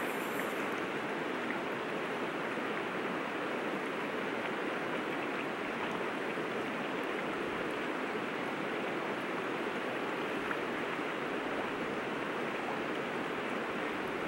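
River water flowing, a steady, even rushing of the current.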